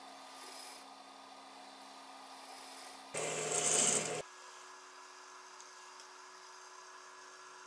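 Industrial straight-stitch sewing machine: its motor hums steadily, and about three seconds in it runs for about a second, stitching through knit fabric, then stops.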